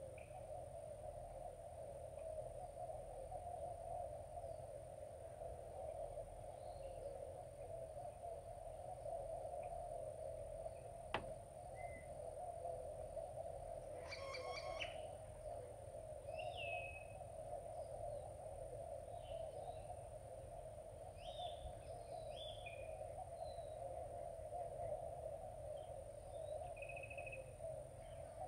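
Wild birds chirping now and then over a steady low hum and a thin high steady tone. A single sharp click comes about eleven seconds in.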